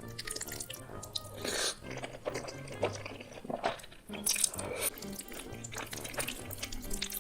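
Wet eating sounds, chewing and mouth clicks from someone taking big bites of food, over background music with steady low notes.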